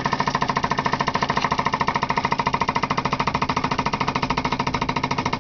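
Homemade thermal lag engine's syringe piston running fast, making a steady rapid clatter of about fourteen strokes a second. The piston is knocking against the end of the heatsink area, since there is no spring to stop it.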